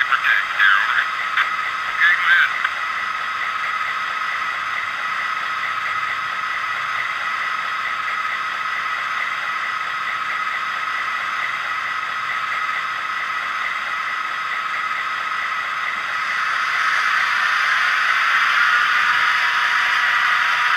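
Diesel locomotive engine sound from an HO-scale model's LokSound v4 DCC sound decoder, played through the model's small speaker and running steadily. A few short squeaky sounds come in the first couple of seconds. About three-quarters of the way through, the engine sound grows louder and rougher.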